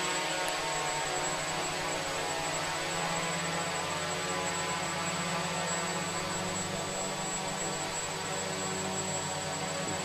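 Small FPV quadcopter's electric motors and propellers running in flight, a steady multi-tone buzzing whine that sways slightly in pitch as the throttle changes. A thin steady high whistle sounds over it throughout.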